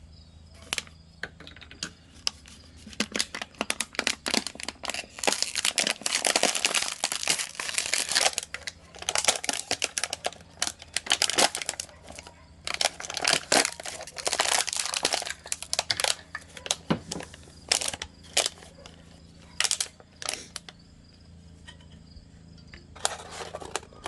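Hands working on a lawn mower's carburetor fuel bowl: bursts of crinkling, rustling handling noise with many sharp clicks, densest in the middle and thinning out near the end.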